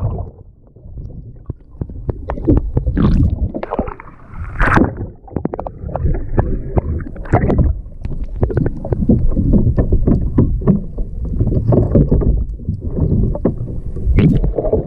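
Water splashing and sloshing irregularly around a kayak as the paddler tips over for an off-side roll attempt, with wind rumbling on the microphone.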